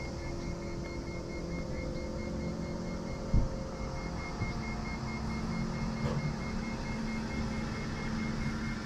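Steady machine hum with a faint high whine over it, and a single low thump about three and a half seconds in.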